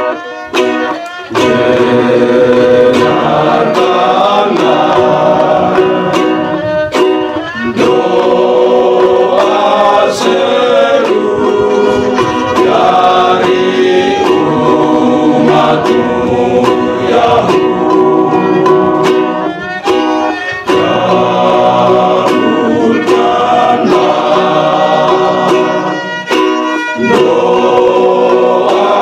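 Men's choir singing a hymn in parts, accompanied by a bowed violin and strummed ukuleles.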